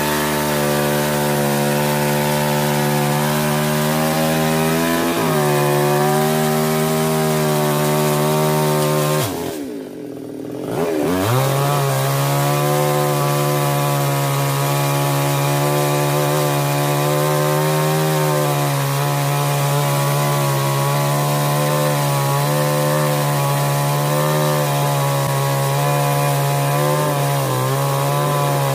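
Maestro 22-inch two-stroke chainsaw running at high revs under load, cutting sonokeling (Indian rosewood) limbs. About nine seconds in the engine drops briefly toward idle and revs back up, then carries on cutting.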